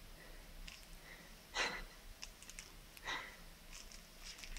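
Two short breaths close to the microphone, about a second and a half apart, over quiet room tone with a few faint ticks.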